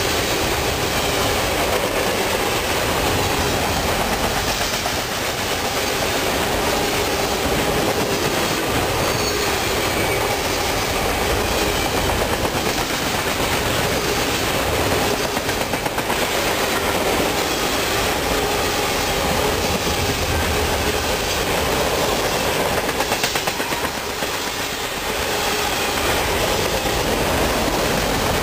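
Freight train of boxcars rolling past close by: a steady rumble and rattle of steel wheels on rail, with rhythmic clickety-clack at times as the wheels cross rail joints.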